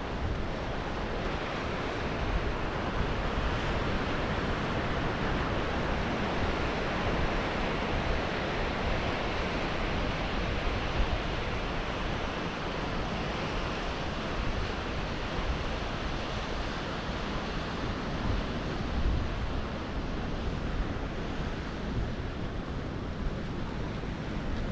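Steady wash of surf breaking on a rocky shoreline, with wind buffeting the microphone.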